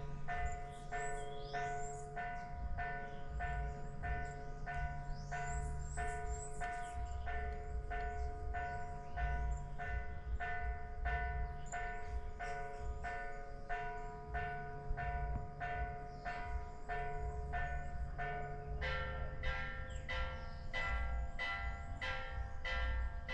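Church bells ringing a steady run of strokes, about two a second, with the set of notes shifting about three-quarters of the way through, as in change ringing. A few short bird chirps sound over it in the first few seconds.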